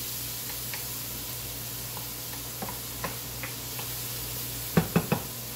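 Chopped tomatoes, onion and garlic sizzling in hot oil in a frying pan while a wooden spatula stirs them, with light scattered taps and scrapes. Near the end, three quick, louder knocks.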